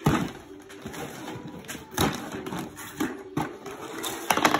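Christmas wrapping paper being torn and crumpled by hand, in several short rustling bursts, with the loudest cluster near the end.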